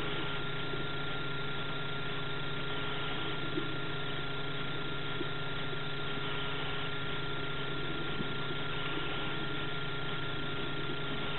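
A steady mechanical hum: a constant high whine over a lower drone and an even hiss.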